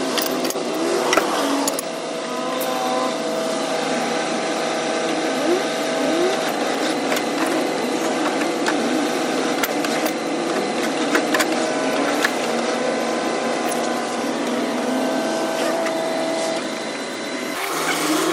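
Heavy truck diesel engine idling steadily, with scattered metallic clinks and knocks of work on the truck's underside.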